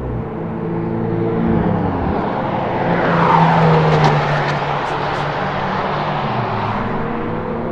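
Ferrari 488 GTB's 3.9-litre twin-turbo V8 running on track and passing by, growing louder to a peak about three to four seconds in, with its pitch falling as it goes past. A few short sharp ticks come just after the peak.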